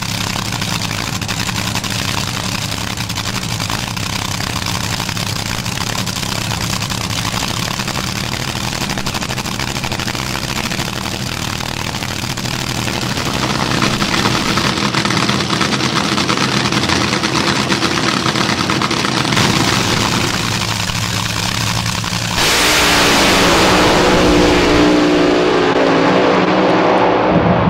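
Nitro-burning, supercharged front-engine Top Fuel dragster engines idling with a steady low rumble, growing louder about 13 seconds in. About 22 seconds in, an engine is suddenly revved to full throttle, much louder and harsher, with its pitch rising and falling.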